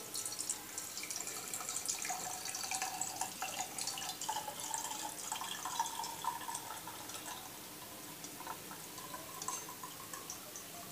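Hot coconut-based herbal oil being strained: poured from a wok through a wire-mesh strainer into a small glass jar, trickling and dripping with small clicks, thinning out over the last few seconds.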